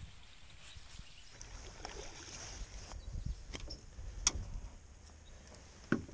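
Scattered small clicks and knocks of handling in a small boat as a landed largemouth bass is unhooked with pliers, with the sharpest click about four seconds in, over a low rumble.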